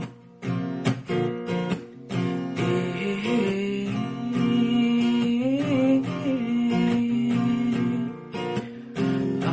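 Background music led by strummed acoustic guitar, with a sliding melody line over it.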